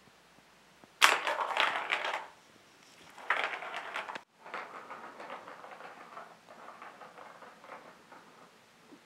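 Plastic ball rattling and rolling through the plastic track of a Catit Senses Circuit cat toy as it is batted by a paw. There is a loud burst of clatter about a second in and another a couple of seconds later, then a softer, fast rattling run that fades out near the end.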